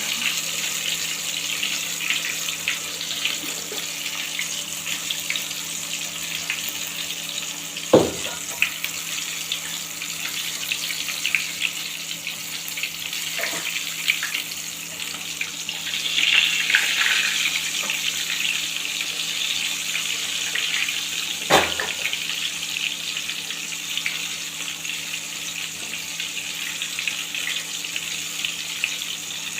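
Chicken frying in hot oil: a steady crackling sizzle, with two sharp knocks, one about a quarter of the way in and one about two-thirds through.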